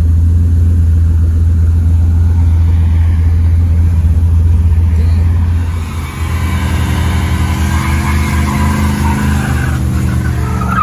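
Chevrolet Camaro engine idling with a steady low rumble, then the car pulls away, its engine revving as it accelerates about halfway through.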